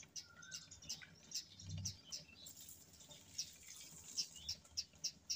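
Ballpoint pen scratching on lined paper in short, irregular strokes as a word is written by hand, with faint bird chirps in the background.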